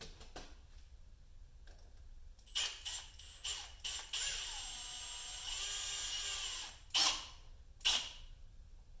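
Small power driver whirring for about two and a half seconds as it tightens a hose clamp on an oil catch can hose, with a few clicks before it and two sharp knocks after.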